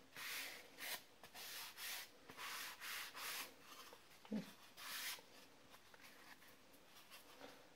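Faint, quick rubbing strokes over a balsa wood block, about eight of them in five seconds, then they stop.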